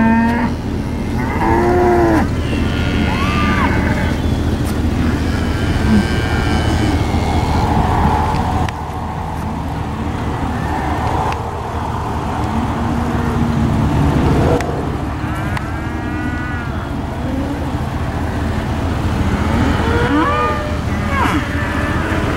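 Steers mooing and bawling, many calls overlapping and rising and falling in pitch, over a steady low engine rumble.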